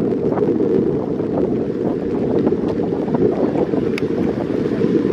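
Wind buffeting the microphone of a camera riding on a moving bicycle: a steady low rumble with faint ticks from the ride over the tarmac.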